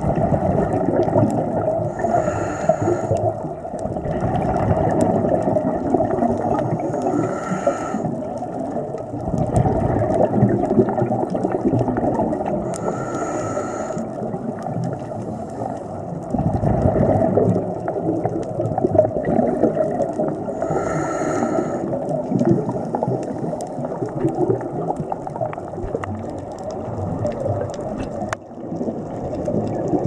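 Scuba diver breathing through a regulator, heard underwater: a few short hissing inhalations several seconds apart, and bursts of exhaled bubbles between them, over a steady low water noise.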